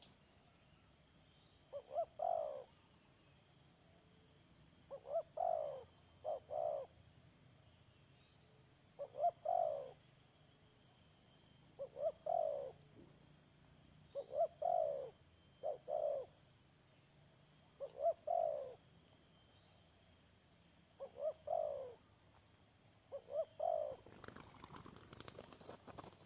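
Spotted dove (tekukur) cooing its phrase over and over, about every three seconds: a couple of short notes and then a longer falling coo. Crackling, rustling noise comes in near the end.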